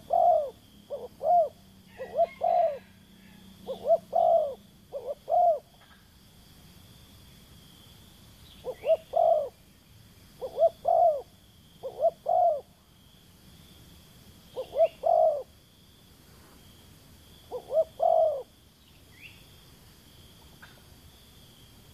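Spotted dove cooing close by, in repeated phrases of two to four short arched coos every couple of seconds, then falling silent near the end. A faint steady high insect drone runs underneath.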